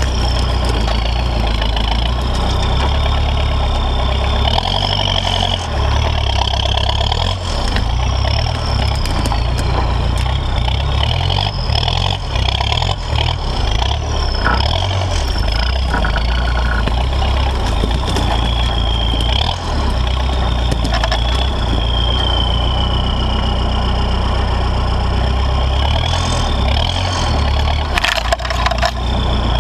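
Toyota Land Cruiser J40 with a 3.0 turbodiesel engine crawling off-road, the diesel running low and steady under a high whine that rises and falls. Near the end, branches scrape and snap against the body.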